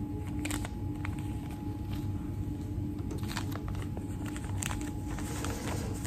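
A peel pack being handled and pulled apart, with light crinkling and scattered small clicks that thicken into a rustle about five seconds in. A steady low hum runs under it throughout and is the loudest sound.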